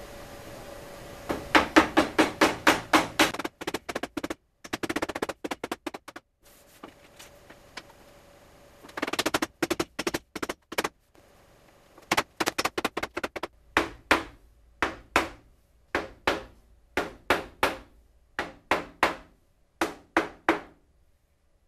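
A mallet tapping aluminium T-track down into routed grooves in a melamine CNC router bed. It starts with quick runs of rapid taps, then moves to slower, spaced taps in the second half.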